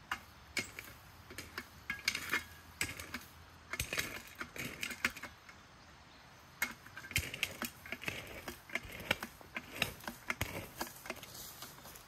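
Footsteps on a forest floor of dry leaf litter and fallen twigs: irregular crunching and twig snapping, with a short pause about halfway through.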